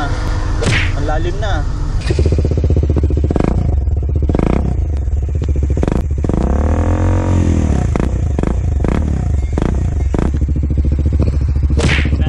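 Kawasaki Dominar 400's single-cylinder engine running at idle through a newly fitted aftermarket slip-on muffler, with a deep, bassy exhaust note. About halfway through, one blip of the throttle makes the pitch rise and fall again.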